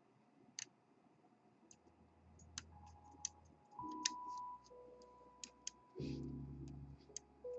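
Sharp, irregular metallic clicks of a hook pick working the pins of a pin-tumbler lock under tension. Background music fades in about two seconds in and is loudest from about six seconds in.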